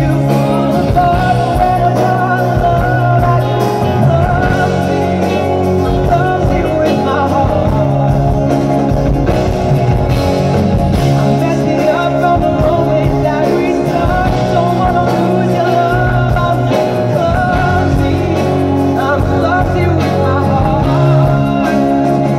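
Live amplified pop-rock band playing at a sound check, with a male singer's voice over guitar and a steady bass line.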